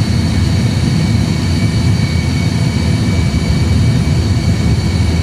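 Airbus A320 flight simulator's engine and runway sound during the takeoff roll at takeoff thrust: a steady, loud low rumble with a faint steady high whine above it.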